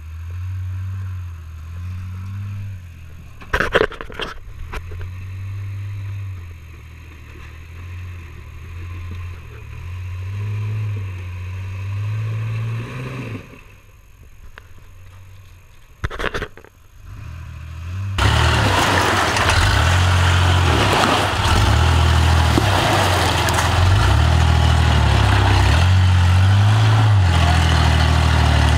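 Engine of a Toyota pickup rock-crawling rig running at low speed, its pitch rising and falling with the throttle as it climbs over rocks, with a sharp knock twice. About two-thirds of the way through, the sound turns much louder and harsher.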